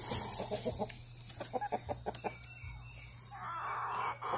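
Chickens clucking in quick runs of short notes, with a longer, noisier call about three seconds in.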